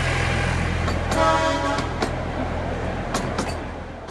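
Miniature railway diesel locomotive's engine running steadily as it hauls passenger coaches past, with a short horn toot about a second in. The engine sound fades away near the end.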